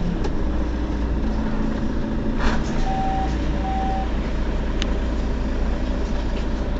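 Mercedes-Benz Citaro facelift city bus idling at a stop with a steady low engine rumble. About three seconds in come two short, evenly pitched beeps, just after a brief burst of noise.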